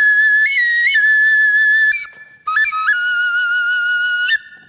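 Bone flute made from a camelid bone, blown to play a short tune of held notes that step up and down in pitch. It plays in two phrases, with a short break about two seconds in, and stops near the end.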